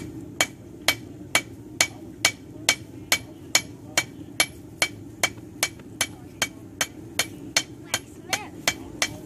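Blacksmith's hammer striking metal on an anvil in a steady rhythm of a little over two blows a second, each blow ringing briefly.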